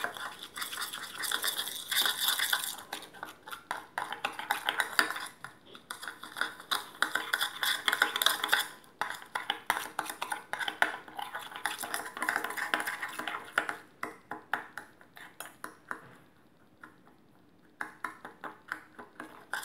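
Metal spoon stirring a sugar and olive oil mixture in a small stainless steel bowl: fast, continuous scraping and clinking against the bowl, stopping for about two seconds near the end before starting again.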